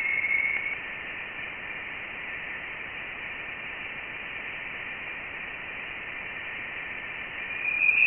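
Voyager 1 plasma wave instrument recording of the vibrations of dense interstellar plasma, turned into sound. A steady, high-pitched hiss band carries a faint tone, which swells into a louder, slightly higher tone near the end.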